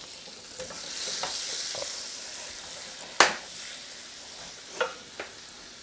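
Butter sizzling as it melts in hot stainless frying pans while a wooden spoon stirs it. The hiss swells in the first two seconds, then eases, with a few light knocks of the spoon and one sharp knock a little over three seconds in.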